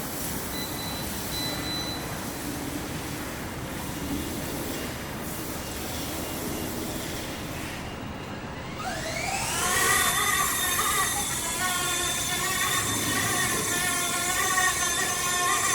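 Wind rushing on the microphone, then about nine seconds in the ERA C189 RC helicopter's electric motor and rotor spool up in a rising whine and settle into a steady high whine that wavers slightly in pitch.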